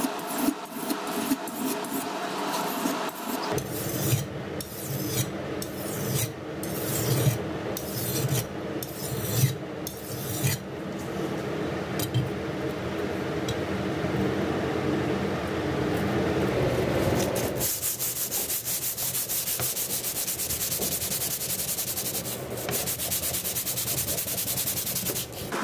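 Steel knife blade rubbed back and forth by hand on a sharpening stone, in separate strokes about once a second, then from about two-thirds through in a faster, steady run of scraping strokes.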